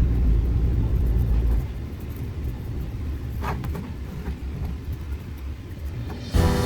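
Deep, low rumbling drone in the background soundtrack, heaviest for the first second and a half, with a brief higher swish about three and a half seconds in. A sustained music chord comes in just before the end.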